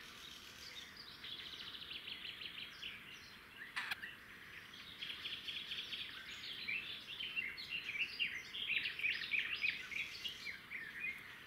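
Small birds chirping and singing in quick runs of short notes, faint over a light background hiss, with a single sharp click about four seconds in.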